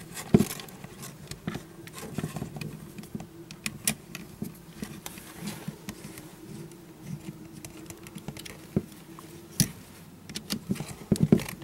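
Screwdriver turning a terminal screw to fasten a crimped ring terminal onto a circuit breaker's line-side terminal, with wires and the plastic breaker body being handled: irregular small clicks and taps, a few of them sharper.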